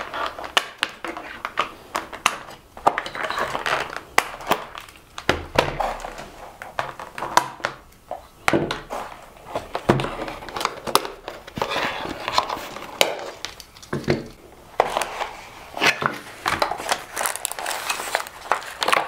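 Scissors snipping and thin plastic ties being pulled out of a cardboard toy box, with the box and its insert rustling and crinkling and many sharp clicks throughout.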